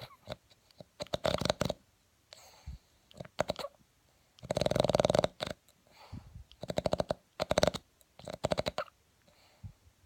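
Boston Terrier snoring in its sleep: a string of fluttering, rattling snores with short quiet gaps between them. The longest and loudest snore comes about halfway through.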